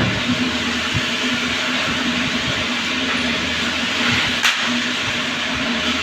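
Handheld electric woodworking power tool, likely the planer used on the cabinet frame, running steadily with a constant motor hum and an even hiss. There are a couple of light knocks, the sharpest about four and a half seconds in.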